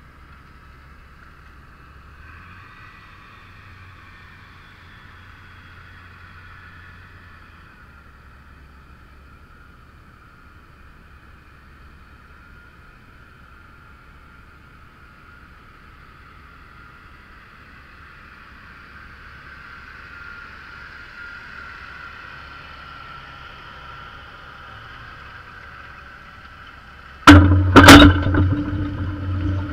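Faint, steady tractor engine working across the field, swelling a little past the middle. Near the end two sharp loud clunks come as the furrow press jolts into motion, then a much louder low engine drone and rattle from close by.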